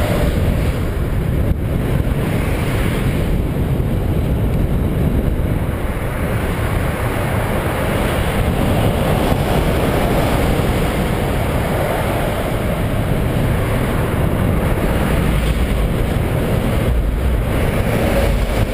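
Steady, loud rush of wind over the microphone of a camera on a moving bicycle.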